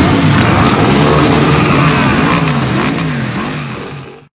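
Engines of a passing column of motorcycles, scooters and quad bikes, several at once, revving up and down in overlapping rises and falls. The sound fades out just before the end.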